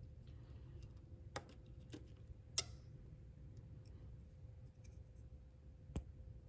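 Three sharp metallic clicks, the loudest about two and a half seconds in, from the low-profile OE band clamp on a BMW S54 throttle body boot being worked with CV boot clamp pliers, over a low steady hum.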